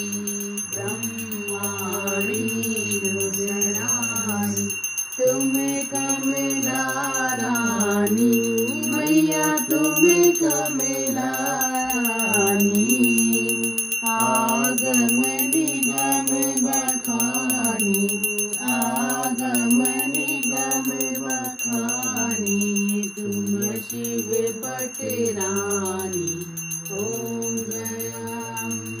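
Hindu devotional aarti singing with musical accompaniment, the melody gliding over a steady bass, while a small hand bell rings throughout.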